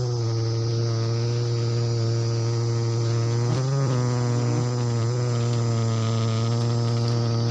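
Giant honeybees buzzing in a steady, low droning hum, with one bee swerving close past about three and a half seconds in.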